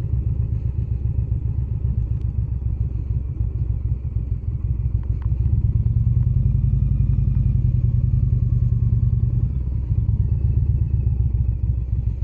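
Indian Springfield's V-twin engine running under way, with a low, rapid firing pulse. It gets louder from about five seconds in, then eases off again near the end.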